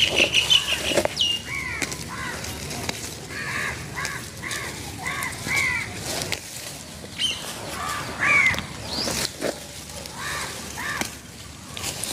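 Crows cawing again and again in short calls, over the rustle and snap of weeds and grass being pulled up by hand.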